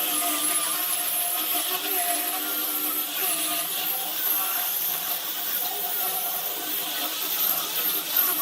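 Woodworking power tool motor running steadily under load, its pitch wavering slightly.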